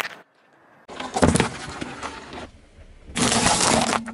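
Car tyre rolling slowly over small food items on asphalt and crushing them: two bursts of dense crunching and cracking, one starting about a second in and another near the end, the later one with walnut shells cracking under the tyre.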